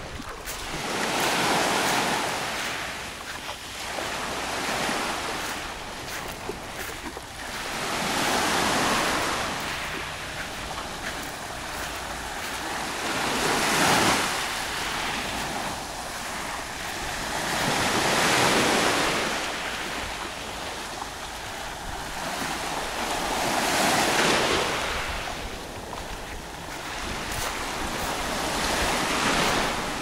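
Small sea waves breaking and washing up a pebbly shore, each surge swelling and fading away about every five seconds.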